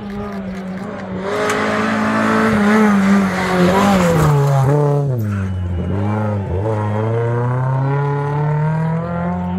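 Rally car engine at high revs, loudest about three seconds in as it goes past, with a rushing noise over it. The engine note then falls to about half its pitch, dips briefly twice, and climbs steadily again as the car accelerates away.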